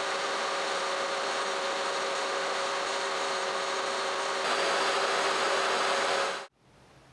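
DeWalt jobsite table saw running with its blade tilted, chamfering the edges of small plywood squares, with a steady whine. It gets louder about two-thirds of the way through as a piece is fed through the blade, then the sound cuts off abruptly near the end.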